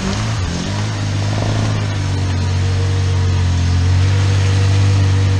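Suzuki Samurai's four-cylinder engine working hard as the 4x4 climbs out of a shallow creek up a muddy bank. The engine speed wavers briefly at the start, then holds high and steady, rising a little near the end.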